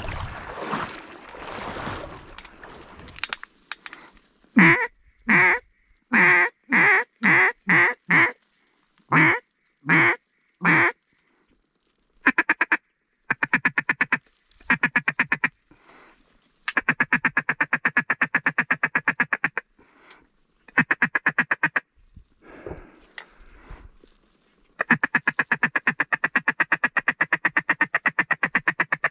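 Mallard duck call blown close by. First comes a descending series of about ten loud, separate quacks, then several runs of fast, even chatter, like a feeding call. There is a short stretch of water sloshing at the start.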